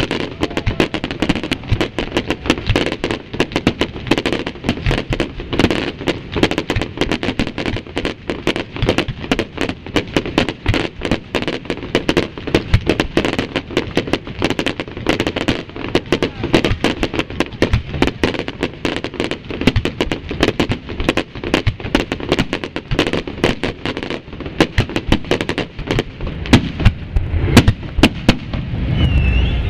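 Fireworks display: a dense, continuous barrage of bangs and crackles from shells launching and bursting, many each second.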